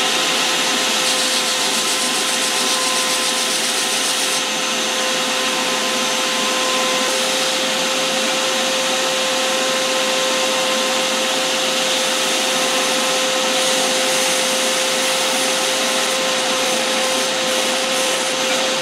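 Belt grinder running with a steady whine over the rush of its belt, sanding a knife's cross-cut micarta handle scales to shape.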